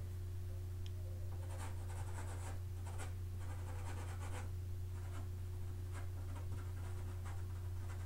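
Soft pastel stick scratching across gritty La Carte sanded pastel paper in a series of short strokes, over a steady low hum.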